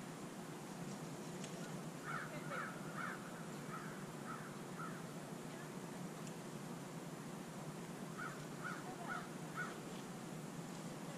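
A bird calling outdoors in two bouts of short, quickly repeated calls, one about two seconds in and another near the end, over a steady low background hiss.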